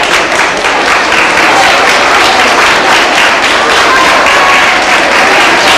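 Audience applauding, a dense, steady clapping with voices mixed in.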